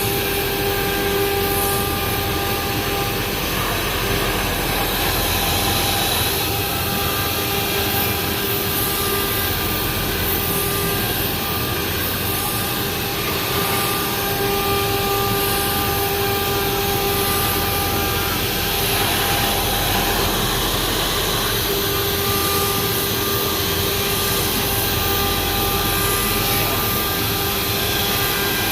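Flatbed pattern-cutting plotter running: a steady rushing noise with a motor whine on top that drops out and returns a few times as the machine works.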